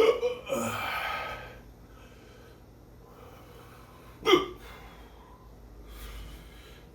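A man hiccuping after eating very hot chili peppers: a sharp hiccup right at the start followed by a long breathy exhale, then another single sharp hiccup about four seconds later. The hiccups are capsaicin-induced.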